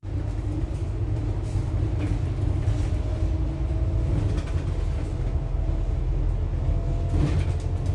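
Steady low rumble of a double-decker bus in motion, heard from inside the upper deck, with a faint steady whine over it.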